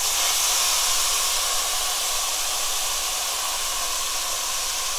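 Marinated bulgogi beef sizzling in a hot frying pan as it is added by hand: a steady hiss.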